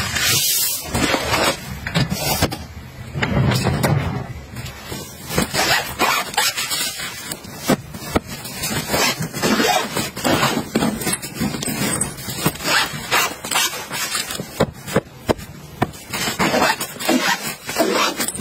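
Close-up handling sounds of a fabric-and-mesh packing cube being folded and filled with clothes: steady rustling and scraping with many small sharp clicks. The first few seconds are heavier and lower.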